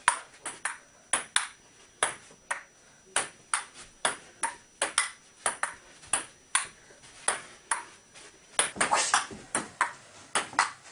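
Table tennis rally: the celluloid ball clicking back and forth off the paddles and the table in a quick, even rhythm, about two to three clicks a second.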